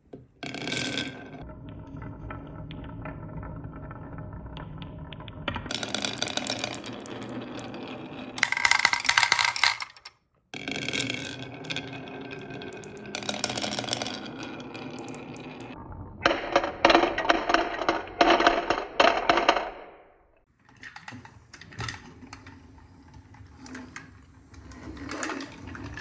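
Marbles rattling out of a plastic tube, then rolling down a carved wooden wave-shaped slope: a steady rolling rumble that comes and goes in several runs, with loud bursts of clattering as the marbles knock against the wood and each other.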